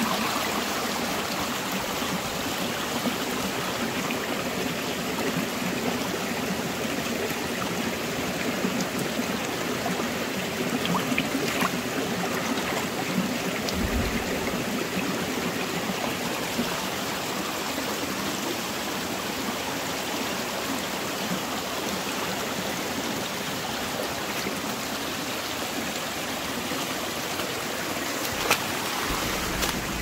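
Shallow mountain stream running over and between boulders: a steady rush of water with trickling.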